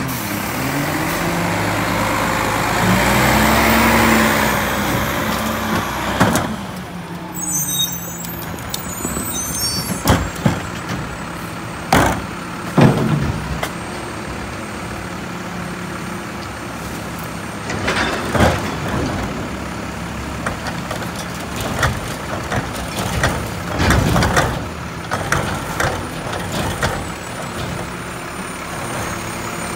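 Mack LEU McNeilus rear-loader garbage truck's diesel engine rising and falling in pitch as the truck pulls up, then idling steadily. Bags and a trash cart are dumped into the rear hopper, giving several sharp knocks and bangs.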